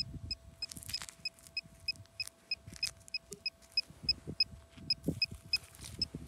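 Metal detector giving short, evenly spaced electronic beeps, about three a second, over a faint steady hum. The beeping stops shortly before the end, and soft scuffs of handled soil sound now and then.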